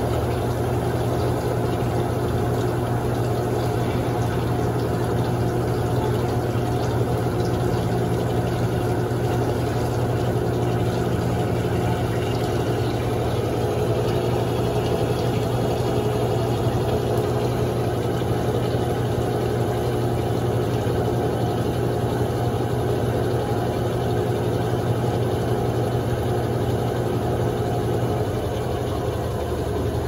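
Electrolux LF10 10.2 kg top-loading washing machine in its spin cycle: the motor and drive run with a steady low hum as the basket spins. It eases off slightly near the end.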